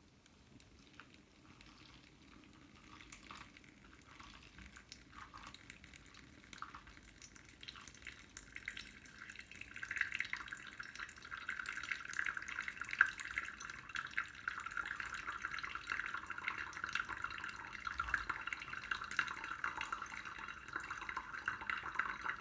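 Water trickling and dripping, with a fine crackle, growing louder about eight seconds in and stopping abruptly at the end.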